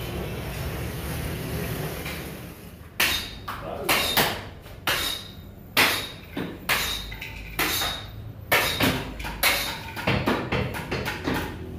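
A butcher's cleaver chopping through the ribs of a hanging side of beef: a long series of sharp chops, roughly two a second, coming faster near the end. Steady street traffic noise comes first, for about three seconds.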